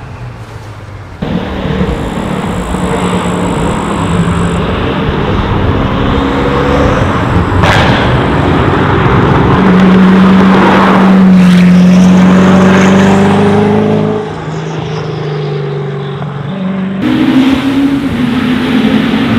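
High-performance car engines revving and accelerating, in a sequence of separate clips that change abruptly about a second in and again near the end.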